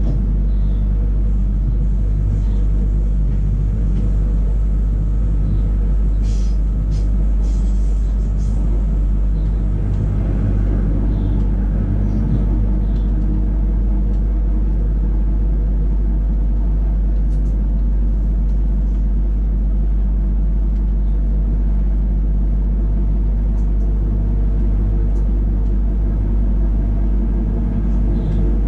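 A Sydney Trains Millennium electric multiple unit running along the track, heard from inside the driver's cab: a steady low rumble with a constant hum, and a few brief clicks between about six and nine seconds in.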